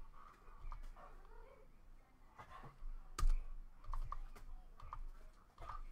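Typing on a computer keyboard: scattered keystrokes, with one louder click a little over three seconds in.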